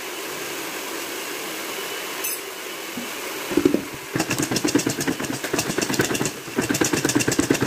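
Popcorn being shaken hard in a stainless mixing bowl covered with a plastic lid to coat it in cheese powder: a fast, continuous rattle of popcorn against the bowl and lid that starts about halfway in, after a few seconds of steady background noise.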